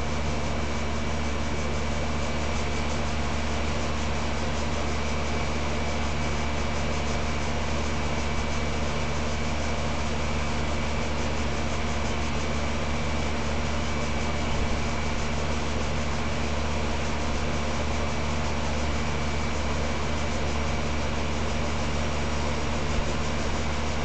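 20-year-old Lennox HS Series central air conditioner's outdoor unit running at full cooling load on its original compressor and fan motor. The compressor hums steadily under the rush of the condenser fan, with a thin high whine held throughout.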